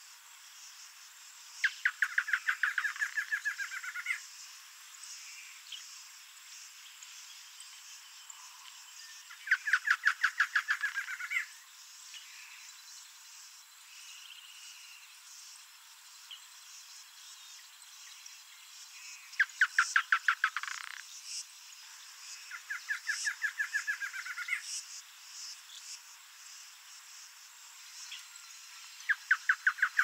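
Male double-collared seedeater singing. Its song is a rapid run of repeated notes about two seconds long, given five times with pauses between. Insects hum steadily in the background.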